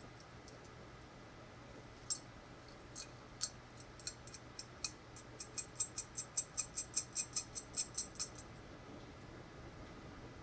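Small metal clicks as a hex nut is turned by hand onto a threaded screw in a steel bracket. They are scattered at first, then speed up into an even run of about four ticks a second that stops a couple of seconds before the end.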